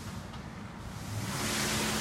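Self-service car wash in operation: an even rushing hiss like high-pressure water spray that swells about a second in, with a steady low hum.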